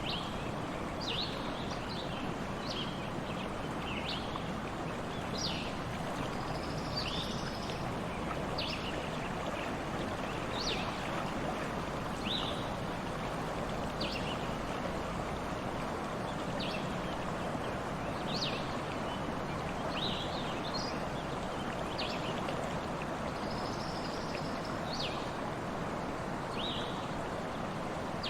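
Stream flowing steadily, with a small bird giving short high chirps every second or two throughout.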